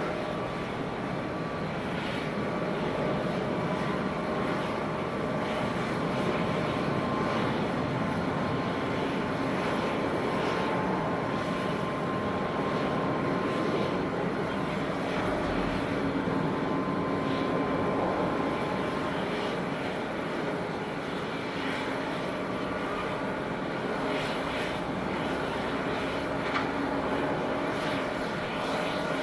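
Rolls-Royce Trent XWB turbofans of a taxiing Airbus A350-900, running at low taxi power: a steady rush with faint whining tones drifting in and out.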